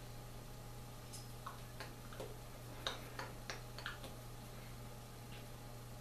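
Faint, irregular clicks and soft taps of hands and fingers meeting as a person signs, bunched in the first four seconds with one more later. A steady low electrical hum runs underneath.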